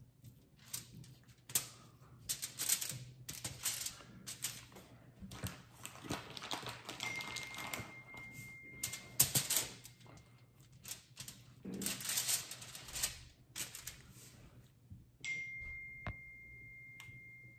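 Crinkling and tapping of aluminium foil on a sheet pan and of plastic bacon packaging as raw bacon strips are handled and laid out, in short irregular clicks. A faint steady high tone sounds twice, for a couple of seconds each time.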